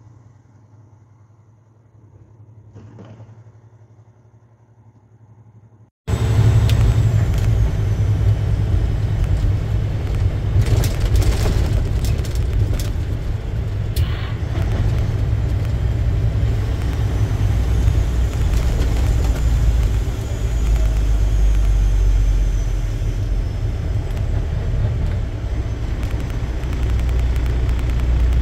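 Inside a semi-truck cab on the road: a steady low engine and road rumble. It comes in abruptly about six seconds in after a much quieter stretch, with a few brief knocks a few seconds later.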